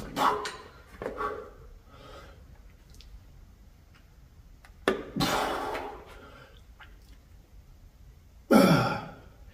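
A man's forceful breaths of effort while pressing heavy dumbbells overhead on a bench. There are two short hard exhales near the start, a longer one about five seconds in just after a sharp click, and a loud voiced exhale near the end that falls in pitch.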